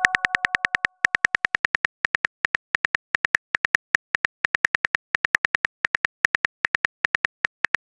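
Simulated phone keyboard taps: rapid, sharp clicks, about eight to ten a second, in quick runs with short gaps, as a text message is typed out. A message chime fades out in the first second.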